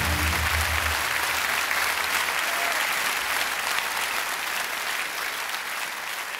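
Concert audience applauding after the song, with the band's last held notes dying away in the first second. The applause fades out gradually toward the end.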